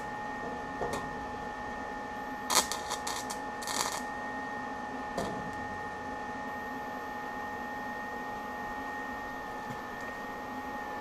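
Steady machine hum with a thin, constant whine, broken by a few sharp clicks or taps in the first five seconds.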